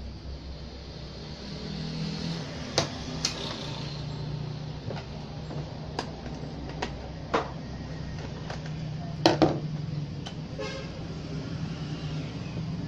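Scattered clicks and knocks of hands and a metal tool handling an opened stereo amplifier's chassis and front-panel knobs, the loudest a quick double knock about nine seconds in, over a steady low hum in the background.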